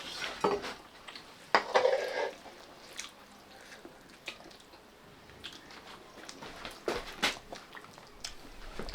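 People eating a rice meal: soft chewing and scattered light clicks and clinks of plates and dishes, with one short louder sound about a second and a half in.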